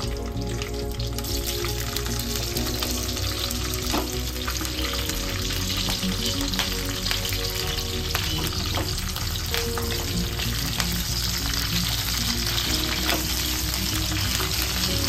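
Long green bajji chillies sizzling steadily as they fry in hot oil in a nonstick kadai, with a few clicks of a slotted spatula stirring them.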